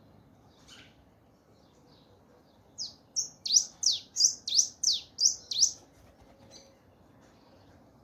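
Caged black-and-rufous warbling finch (sietevestidos) singing: a phrase of about nine sharp, mostly falling whistled notes at roughly three a second, starting a little under three seconds in, with a few faint single notes before and after it.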